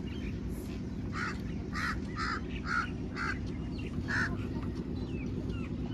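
Farmyard fowl calling: a run of about six short, harsh calls roughly half a second apart, then small birds chirping near the end, over a steady low background rumble.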